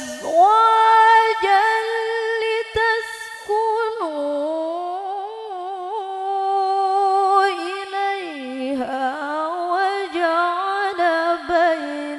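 A woman's solo voice reciting the Qur'an in the melodic tilawah style through a microphone and PA, drawing out long held notes with quavering ornaments. The pitch steps down twice, about four and eight seconds in.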